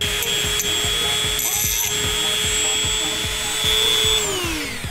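Handheld rotary tool grinding down the cut edge of a short metal intercooler pipe, a steady high whine, then switched off and spinning down about four seconds in.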